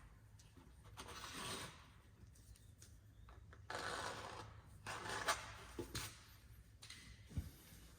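Sheet-metal exhaust pipe being cut, most likely with tin snips, in a few short rasping bursts with scattered metallic clicks.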